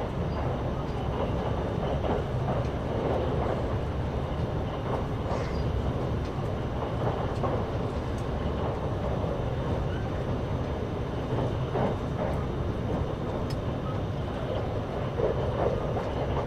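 Train running steadily: a continuous low rumble of wheels on rail with an irregular rattle over it.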